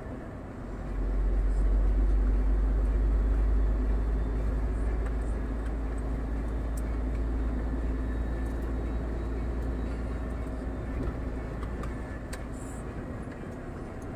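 Scania R440 truck's straight-six diesel engine and road noise heard from inside the cab while driving: a steady deep rumble that grows louder about a second in, then slowly eases off.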